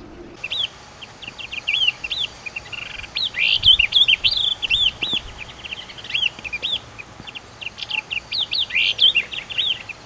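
Small songbirds chirping: a quick, irregular series of short, high chirps and twitters, some overlapping, busiest around the middle.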